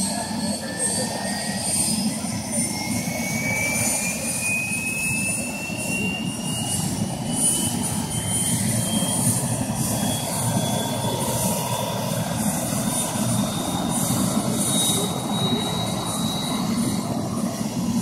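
Helicopter turbine engine spooling up during start: a high whine rising steadily in pitch over a steady rumble, as the main rotor turns slowly.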